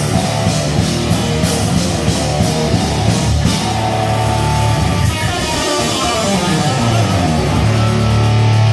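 Live rock band playing loud: electric guitar through an amplifier over a drum kit, with a low chord held and ringing near the end.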